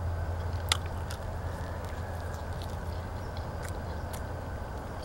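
A person chewing a mouthful of onion pancake close to the microphone, with a few sharp mouth clicks, the loudest about a second in. A steady low hum runs underneath.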